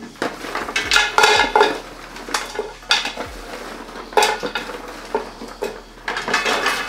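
Roasted duck carcasses and bones clattering into a tall aluminium stockpot as a wooden spatula scrapes them off a metal roasting pan. The sound is a run of irregular clatters and scrapes.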